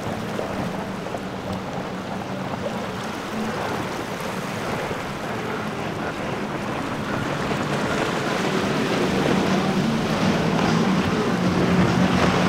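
Triple Mercury 350 outboard engines on a Cigarette GTS 39 center console running at speed, with the rush of water and spray off the planing hull. The engine hum grows louder over the last few seconds as the boat comes close.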